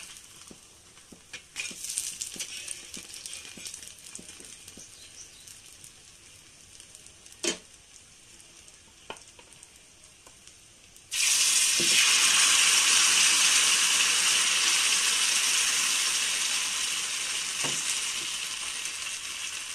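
Rice-flour batter frying in a hot oiled pan: about 11 seconds in, a loud sizzle starts abruptly as fresh batter meets the oil, then slowly fades as it sets. Before that, only faint crackling and a single knock.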